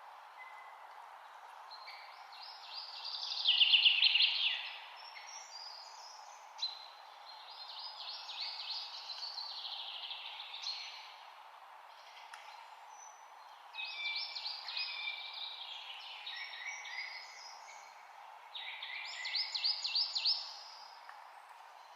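Songbird singing: four rapid trilled phrases of quick repeated notes, each lasting a couple of seconds, over a steady background hiss. The first phrase, a few seconds in, is the loudest.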